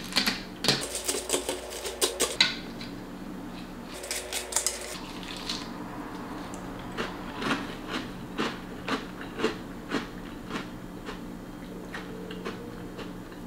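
Metal spoon clinking and scraping against a small glass bowl of Honey Nut Cheerios in milk, in quick clusters over the first few seconds. Then close-up chewing of a mouthful of cereal, with separate crunches about twice a second.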